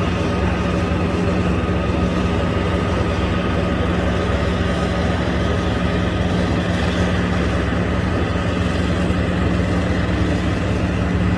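An engine running steadily, a constant drone with an even hum that does not rise or fall.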